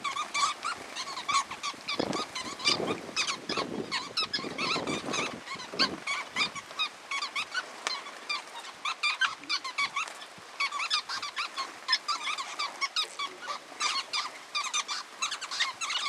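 A flock of small sparrow-sized birds chattering, many short high chirps overlapping without a break.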